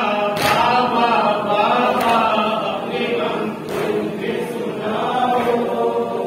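Men chanting a noha, a Shia lament, in unison, with a sharp slap of matam (hands striking chests) about every second and a half to two seconds.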